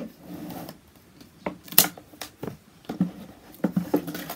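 Scissors snipping through the strap around a coiled garden hose, with a few sharp clicks and the rustle of hands handling the hose in its plastic reel; the loudest click comes about two seconds in.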